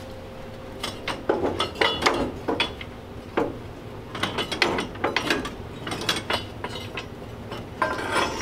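Old metal car parts clanking, knocking and scraping against each other as a leaning pile of steering wheels and rusty rods is shifted and rummaged through. The clanks are irregular, starting about a second in, with one clank ringing briefly near the end.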